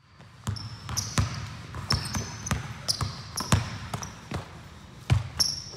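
A basketball being dribbled hard on a hardwood gym floor, bouncing about twice a second at an uneven pace, with short high squeaks from sneakers on the court.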